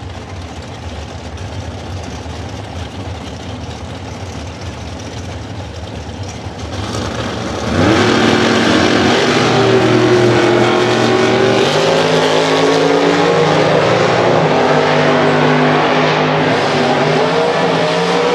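Two Super Comp drag racing cars, a V8 dragster and a door car, running at the starting line. About seven and a half seconds in they launch, and the engines jump to full throttle with a rising note. The noise stays loud as they run down the strip.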